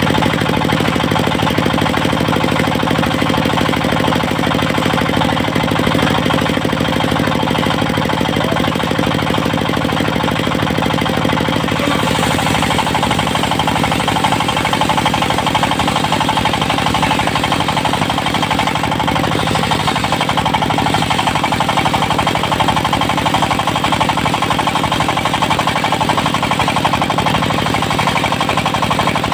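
Engine-driven portable circular sawmill running steadily with a rapid knocking engine beat. About twelve seconds in its sound turns brighter and higher.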